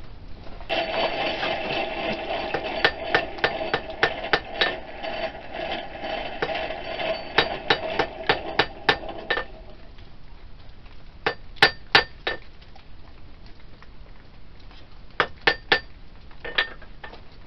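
Hand hammer striking a red-hot steel knife blade on an anvil, forging the blade to shape. A rapid run of blows comes first, over a steady droning tone that stops about ten seconds in, then a few short groups of strikes with pauses between them.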